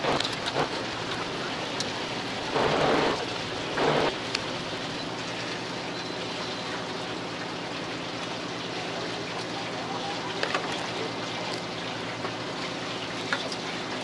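Steady hiss of water around a fishing boat over the low, even hum of its engine, with two short louder rushes about three and four seconds in and a few light clicks.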